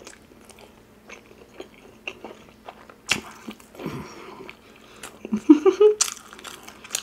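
A person eating close to the microphone: chewing and biting with small wet mouth clicks and smacks. A brief voiced sound rises in pitch between five and six seconds in.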